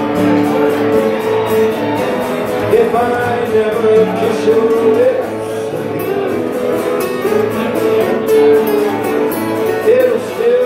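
Acoustic guitar strummed while a man sings into a microphone, holding long notes in the melody.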